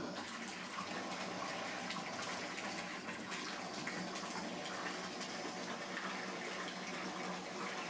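Bath tap running, a steady stream of water pouring into a partly filled bathtub.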